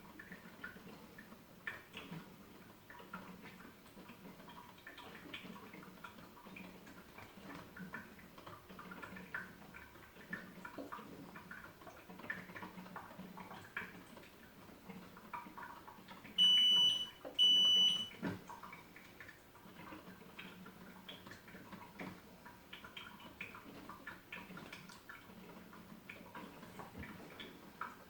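Drip coffee maker brewing with faint, irregular gurgling and sputtering. About two-thirds of the way through, two loud, high-pitched electronic beeps sound about a second apart.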